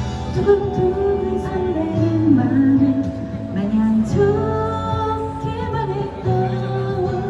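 A live song performance: a female voice sings a melody over instrumental accompaniment.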